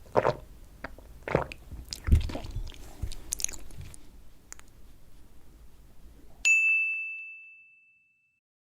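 Close-miked chewing and biting of soft cheesecake, a few wet mouth sounds in the first few seconds. Later a single bright ding sounds once and rings out, fading away over about a second and a half.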